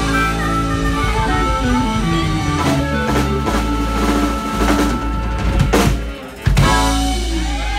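Live blues band playing: electric guitars, bass, drums and harmonica, with sharp drum hits. About six seconds in the sound drops briefly, then the band comes back in on a loud accented hit and holds the notes, like the closing bars of a song.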